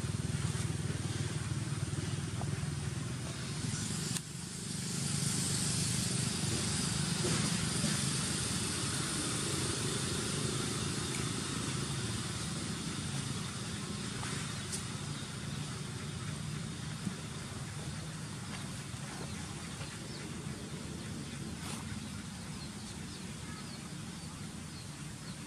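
Steady low hum of a motor vehicle engine running, with a high hiss that grows louder about four seconds in and slowly fades.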